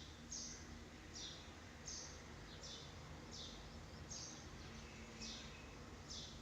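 Small bird chirping repeatedly and faintly, short high falling chirps about one and a half a second.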